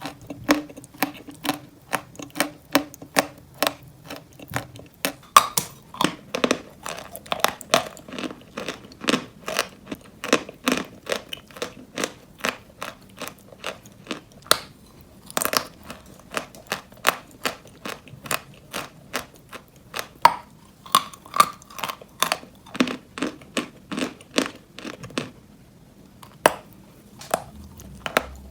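Close-miked bites and chewing of dry White Turkestan chalk: sharp, dry crunches roughly one to two a second, with a brief pause near the end.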